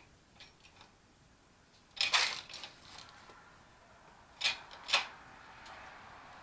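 A shop press being worked to force a punch against a rust-seized rear hub part: a loud mechanical clack about two seconds in, then two sharper clacks half a second apart a couple of seconds later, as pressure builds on the stuck part.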